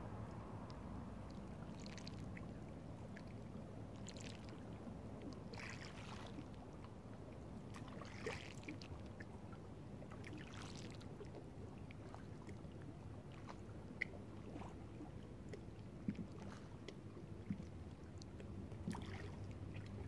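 Small waves lapping on a pebble shore, a soft wash and splash every couple of seconds, with a few sharp ticks in the second half.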